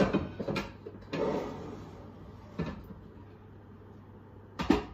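A cooking pot being set down and shifted on the worktop: a few knocks and a short scrape of metal, then a single knock. A louder, sharp clack comes near the end.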